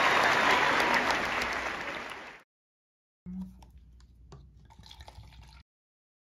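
A theatre audience applauding a curtain call, dense and loud, fading out about two and a half seconds in. After a short silence come a few faint taps over quiet room noise.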